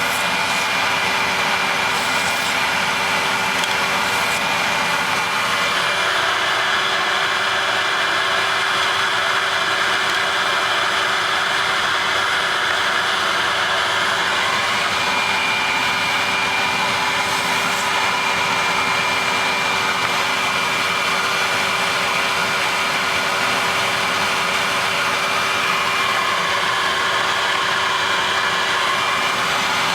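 Vacuum cleaner running steadily, its motor giving a constant whine over the rush of air through the hose, the airflow hiss growing fuller for a few seconds at a time as the nozzle works.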